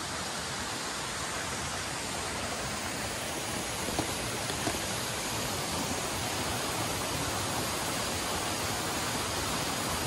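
Steady rushing of a waterfall pouring into its plunge pool, growing slightly louder later on, with a couple of faint clicks about four seconds in.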